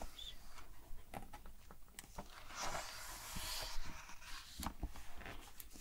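A page of a large hardcover picture book turned by hand: a soft paper rustle and slide about two and a half to four seconds in, with scattered light clicks and taps on the paper before and after.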